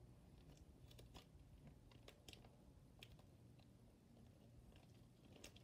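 Near silence, with a few faint scattered clicks and crinkles from a small plastic bag of foam beads being handled.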